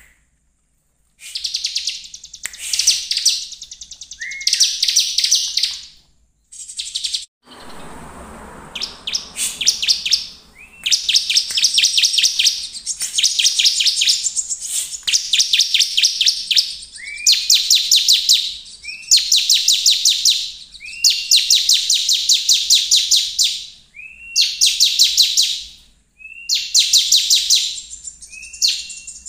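Bar-winged prinia (ciblek) in full, continuous song: a long series of high, fast trilled phrases, each a second or two long and opening with a short rising note, with brief pauses between them. A low rustling noise comes through about a quarter of the way in.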